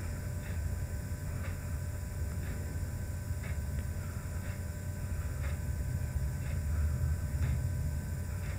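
Room tone: a low steady hum with faint short ticks about once a second.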